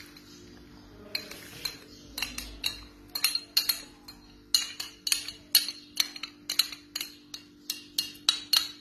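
A utensil clinking against a mixing bowl in quick repeated strokes, about two to three a second, as a batter of eggs, sugar, oil and milk is mixed by hand. The strokes start about a second in and grow louder about three seconds in.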